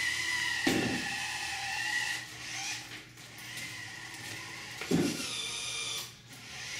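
Small electric drive motors of a competition robot whining as it drives, backs up and manoeuvres on omni wheels, the whine shifting in pitch. Two short thumps come about a second in and again about five seconds in.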